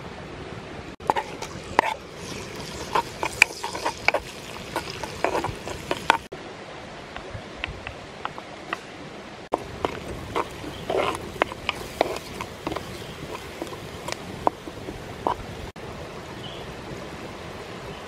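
Chopped red chilies and garlic frying in hot oil, sizzling with many sharp crackles and pops that come in two busy spells, over the steady rush of a stream.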